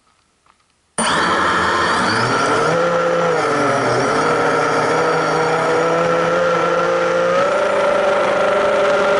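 Drone's electric motors and propellers whining, heard close from its onboard camera. The whine starts suddenly about a second in as it lifts off, wavers and dips in pitch, then steps up higher about seven seconds in as it climbs.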